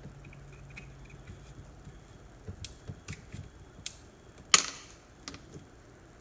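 Scattered light clicks and knocks of a replacement car door latch assembly being handled and worked into place inside the door, with one sharp, much louder click about four and a half seconds in.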